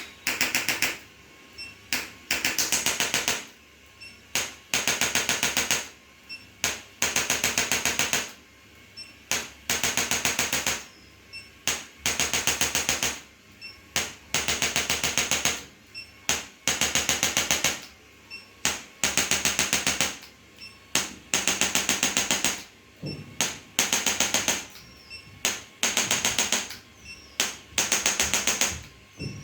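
Handheld electric percussion instrument firing bursts of rapid, evenly spaced taps, each burst about a second long and repeated roughly every two seconds, with a single click before most bursts.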